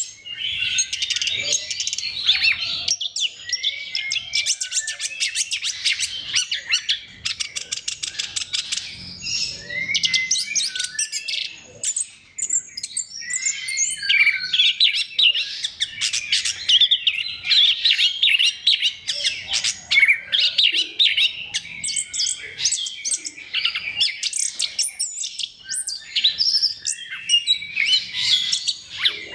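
Orange-headed thrush singing a long, varied song of rapid trills, chirps and whistled phrases, almost without a break. There is a short lull about 12 seconds in.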